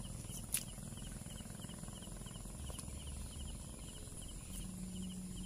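Night insects chirping: a steady high-pitched buzz with a faint chirp repeating about three times a second, over a low rumble. A single sharp click sounds about half a second in.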